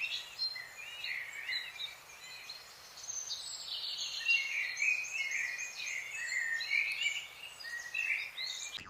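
Songbirds singing: many quick chirps and warbled phrases, overlapping and continuous, over a steady outdoor hiss.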